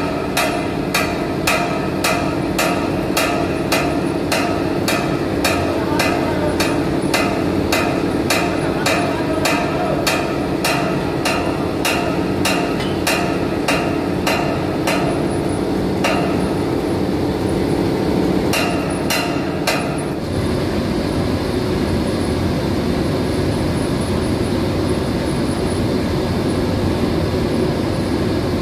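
Sharp metallic clicks in an even rhythm, about two a second, from hand tools working on a pipeline butterfly valve, over the steady hum of the pump room's centrifugal pumps. The clicks stop after about sixteen seconds, with a few more near twenty seconds, leaving just the pump hum.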